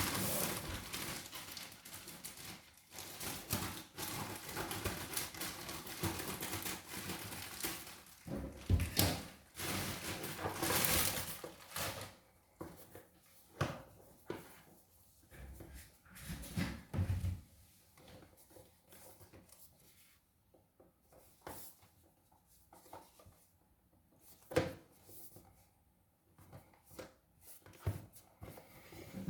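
A cardboard box and its packaging being opened and handled: rustling and scraping with a few knocks for the first dozen seconds, then scattered thumps and clicks with quiet gaps between them.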